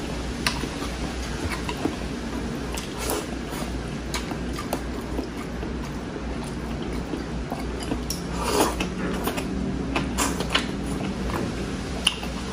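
Close-up eating sounds of beef sinigang and rice eaten by hand: chewing with scattered wet smacks and small clicks, and a louder wet mouth sound about eight and a half seconds in, over a steady low hum.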